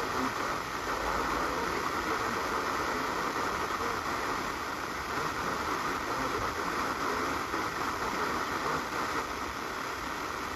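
Steady hiss of radio static from a receiver, an even noise with a faint thin high tone running through it.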